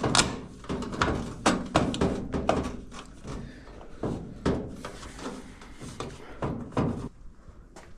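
Irregular knocks, clunks and rattles of GE electric dryer parts being handled and pressed into place during reassembly after a drum bearing replacement.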